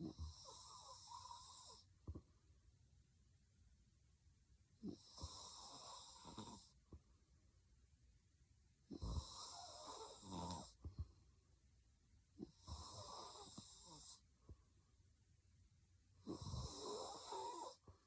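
A woman snoring heavily in her sleep: five snores, each nearly two seconds long, at an even pace of one every three to four seconds.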